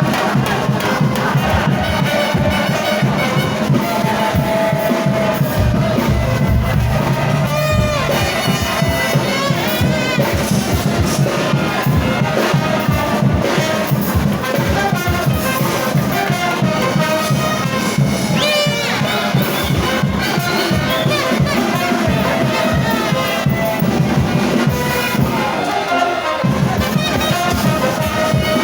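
Frevo played loud by a brass band, trumpets and trombones in fast runs, over a crowd.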